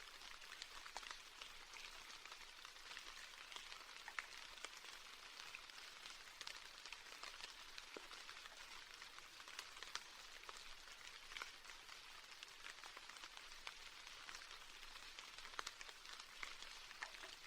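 Quiet, steady rain: an even hiss with many small drop ticks scattered through it.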